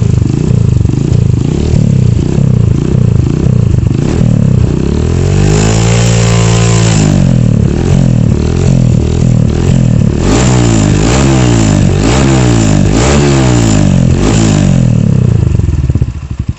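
Honda CBF motorcycle engine revved through a Norifumi TORC aftermarket exhaust: a run of quick throttle blips, one longer rev that rises and falls about five seconds in, more quick blips, then a drop back to a pulsing idle near the end.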